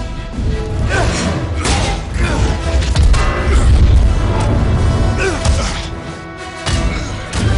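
Battle scene from a film soundtrack: a dramatic music score with several sudden crashes and booms of fight impacts laid over it.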